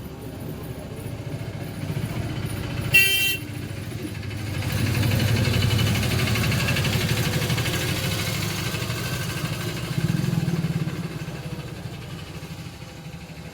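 A motor vehicle, likely a motorcycle, running past, its sound swelling and then fading, with a short horn honk about three seconds in.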